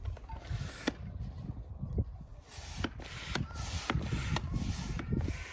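Plastic dual-action hand pump and its hose being handled and turned over: rubbing and scraping with several sharp plastic clicks, over a low wind rumble on the microphone.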